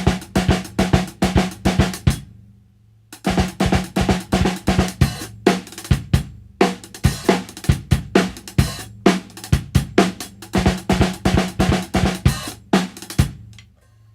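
Drum kit playing Swiss Army triplets with a left-hand lead at an up tempo: a left-hand stroke, then a right-hand flam and a right-hand stroke on the snare drum, with a bass drum under each pair of right-hand strokes, so snare and kick interlock. The playing stops for about a second, two seconds in, then runs on until shortly before the end.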